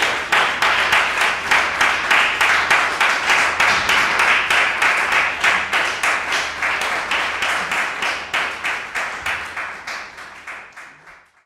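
Audience applauding with many closely packed claps. It dies away in the last couple of seconds and cuts off.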